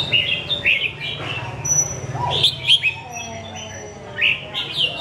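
Red-whiskered bulbul singing: three bursts of short, bright whistled notes that sweep quickly upward.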